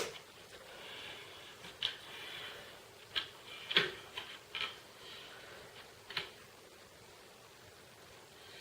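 String being pulled and looped around the nails of a wreath frame: a soft rubbing hiss with scattered light clicks and taps, the sharpest a little under four seconds in.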